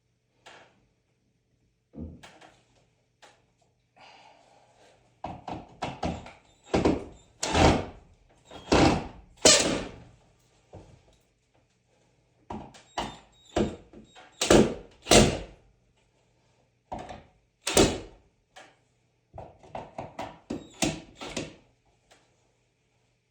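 An irregular series of knocks and thuds on a wall in a small room. They come in clusters, and the loudest blows fall in the middle.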